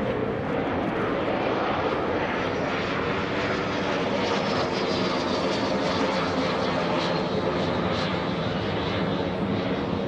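An L-39 Albatross jet trainer's single turbofan engine is heard in flight as a steady jet noise. A faint high whine slides down in pitch about halfway through as the jet passes.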